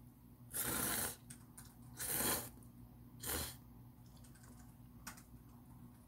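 A person slurping noodles: three short noisy slurps in the first three and a half seconds, the first the longest at about half a second, then a faint click near the end.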